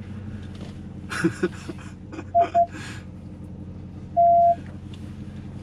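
Ram TRX's supercharged V8 running with a steady low hum while the truck creeps through a water and mud crossing, with brief splashing and scraping noises about a second in. Louder single-pitch electronic beeps cut in: two quick ones about two and a half seconds in and a longer one around four seconds.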